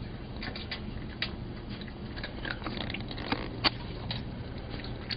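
Cat chewing dry cat treats: an irregular run of small crisp crunches, the two loudest a little after halfway.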